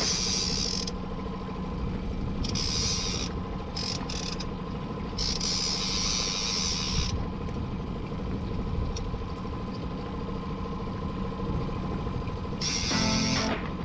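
Fishing reel cranked in four bursts of high whirring while an angler fights a salmon on a bent rod, over the steady hum of a boat's outboard motor.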